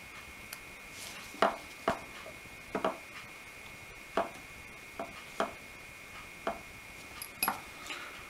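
About ten light, irregular clicks and taps of small hand tools working the metal contacts and plastic parts of a TT-scale model train, with a faint steady high tone in the background.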